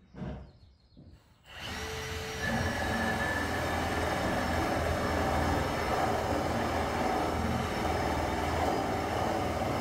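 Heavy-duty cordless drill boring a hole through a wooden wall stud, starting about one and a half seconds in and then running steadily under load.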